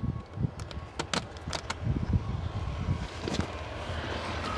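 Scattered clicks and light rattles of hands working an ATV's handlebar controls and rack, over low uneven rumble.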